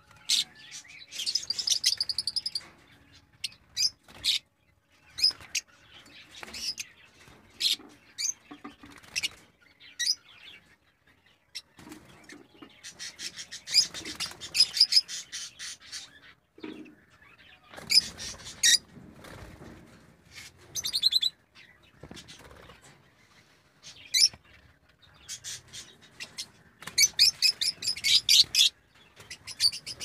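Caged lovebirds calling: sharp, shrill chirps scattered throughout, with several bursts of rapid, dense chattering.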